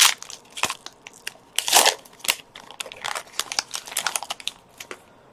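Foil wrapper of a Pokémon TCG booster pack crinkling as it is handled, in irregular crackles with one longer, louder rustle nearly two seconds in.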